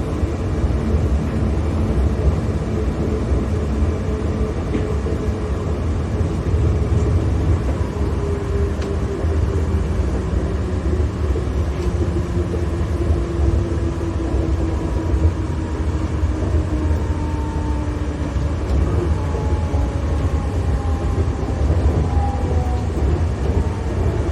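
Ride noise inside a New Shuttle rubber-tyred guideway train: a steady low rumble from the running gear. A faint whine slowly falls in pitch through the second half, as the train slows for the next station.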